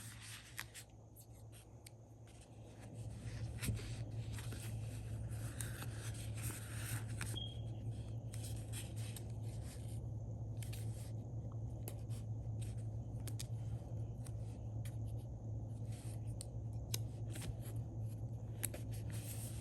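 Paper and stickers being handled on a planner page: small clicks, taps and light rubbing, over a steady low hum.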